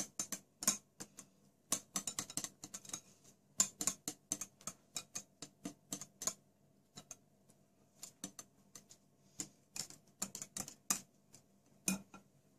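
Wire whisk beating thick cheesecake batter in a glass bowl: quick, irregular clicks of the wires against the glass, several a second, with brief pauses.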